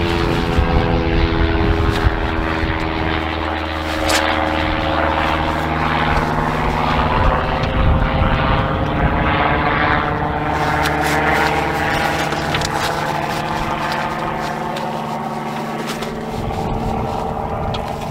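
Steady engine drone with several tones slowly shifting in pitch, like a propeller aircraft passing. A lower hum drops out about 16 seconds in, and a few light clicks sit on top.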